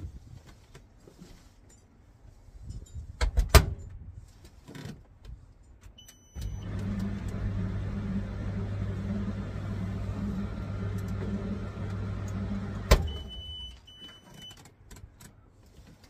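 Russell Hobbs RH8CTD701 tumble dryer test. The door shuts with a knock, the control panel beeps once, and the drum motor starts with a steady hum. About seven seconds later there is a sharp click as the door is opened: the motor cuts out and the dryer beeps twice, a sign that the newly fitted door latch and kill switch now stop the dryer when the door opens.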